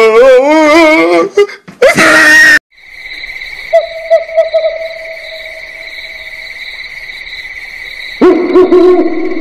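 A high, voice-like wail that wavers up and down in a quick regular vibrato, broken by a short loud noisy burst about two seconds in. Then, after an abrupt cut, a steady high insect drone with a fainter lower tone, and the wavering wail starts again near the end.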